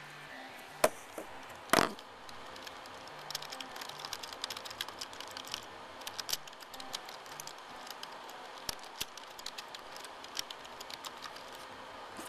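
Typing on a computer keyboard: a quick, uneven run of key clicks from about three seconds in, after two louder knocks near the start.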